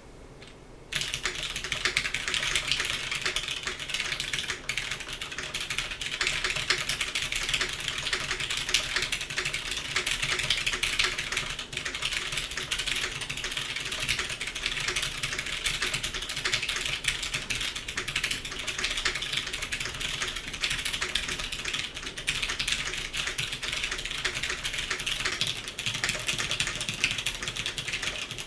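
Continuous fast typing on a custom mechanical keyboard with oiled vintage Cherry MX Clear tactile switches, 2013 GMK beige keycaps and original Cherry stabilizers, starting about a second in.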